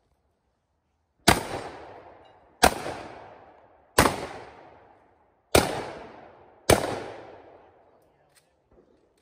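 Shotgun firing five shots, spaced about a second to a second and a half apart, each with a ringing tail that fades over about a second. A few faint clicks follow near the end.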